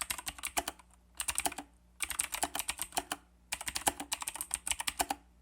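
Typing on a Royal Kludge G87 mechanical keyboard with clicky RK Blue switches: quick runs of key clicks broken by a few short pauses.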